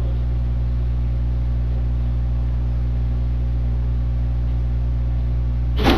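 Room tone of an empty interrogation room: a steady low electrical hum with a faint hiss, and a brief thump near the end.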